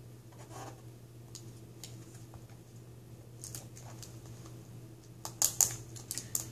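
Scattered small clicks and taps of fingers and fingernails handling the tape and video-cable connector at the back of a laptop LCD panel, louder and more frequent from about five seconds in. A faint steady low hum lies beneath.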